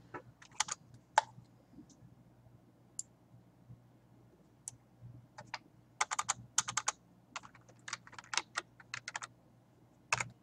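Typing on a computer keyboard: a few scattered keystrokes, then quick runs of typing from about six seconds in, over a faint steady hum.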